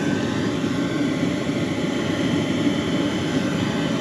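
BougeRV diesel air heater running on a high setting: a steady drone from its combustion blower and burner, with a faint steady hum.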